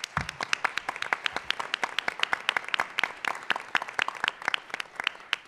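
Audience applause in a hall, with sharp individual claps standing out over the general clapping, tapering off near the end.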